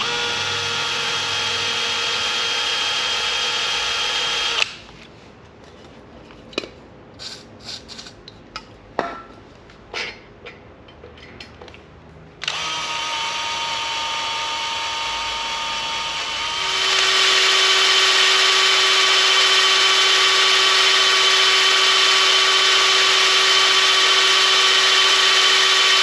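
Power drill boring mounting holes in the log splitter's metal: it runs steadily for a few seconds, stops for a stretch of light clicks and knocks, then runs again and grows louder with a lower steady tone for most of the second half.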